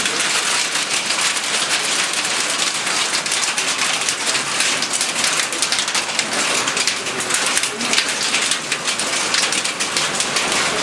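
Small hail pelting down in a dense, steady patter of countless tiny hits.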